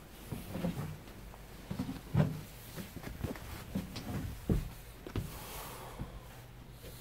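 Footsteps and dull knocks on a boat's cockpit deck, about a dozen irregular thuds as someone steps across it, the loudest about two seconds in and again about four and a half seconds in.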